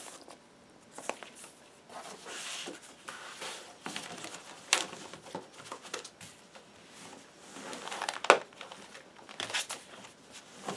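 Paper record inner sleeves and cardboard LP jackets rustling and sliding as they are handled, with a few sharp taps; the loudest tap comes about eight seconds in.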